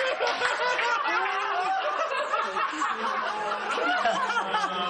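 A group of people laughing together in a TV studio, many voices overlapping in continuous laughter.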